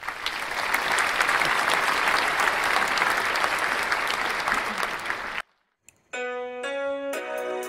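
Clapping applause for about five seconds that cuts off suddenly. After a short silent gap, background music with piano notes begins.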